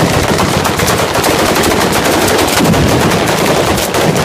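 Ground firework battery (batteria alla bolognese) firing: a dense, rapid string of firecracker bangs that starts suddenly and goes on without a break.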